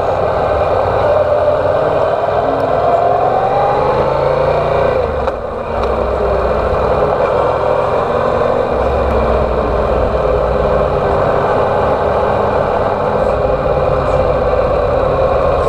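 Yamaha TDM 850's parallel-twin engine running under way while riding, under a steady rushing noise; the engine pitch rises a couple of seconds in, then drops with a brief dip in level a little over five seconds in.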